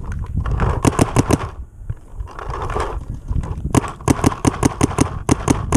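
Paintball guns firing in rapid strings of sharp pops: a short burst of about five shots about a second in, then a longer volley of a dozen or so shots from just under four seconds in, over a low rumble.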